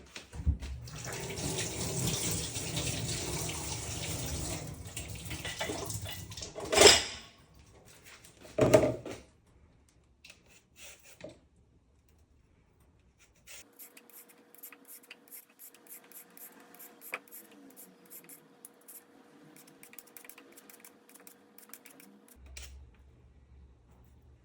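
Tap water running into a kitchen sink for about six seconds, then two loud clanks a couple of seconds apart. Later comes a long run of light clicks and taps over a faint steady hum.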